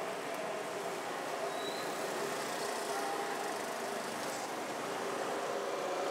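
Steady street traffic noise: the running of vehicles on a busy city road.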